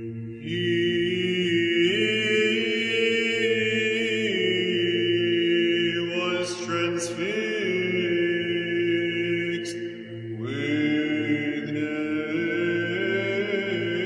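Background music: sung chant, voices holding long notes over a steady low drone, with new phrases entering about half a second in and again near the ten-second mark.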